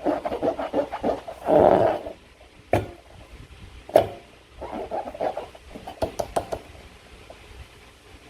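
Slime being squished and worked by hand: bursts of wet squishing in the first two seconds and again from about four and a half to six and a half seconds in, with two sharp clicks about three and four seconds in.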